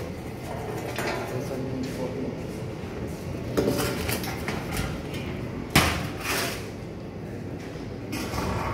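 Dune sand being hand-mixed with water: a mixing tool scraping and clattering against its container, with a sharp knock a little under six seconds in.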